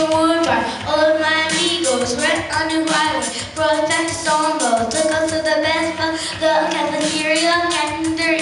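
A song: a high voice singing held notes that slide between pitches, over backing music with a steady beat.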